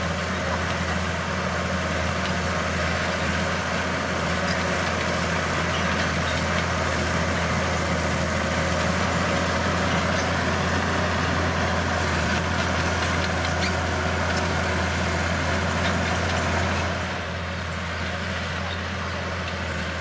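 Bulldozer's diesel engine running steadily under load, easing off slightly near the end.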